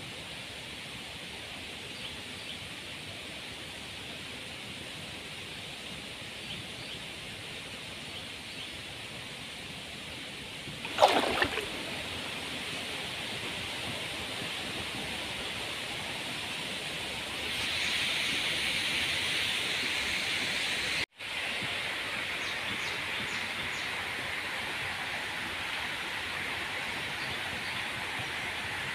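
Steady hiss of flowing river water, growing louder about two-thirds of the way through. There is one brief, loud swish with falling pitch about a third of the way in, and the sound cuts out for an instant about three-quarters through.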